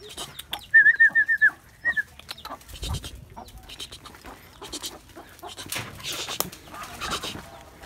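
Chicken squawking in alarm, a quick run of about six sharp calls and then one more, while a hunting dog chases it. Footsteps and rustling in dry leaves follow.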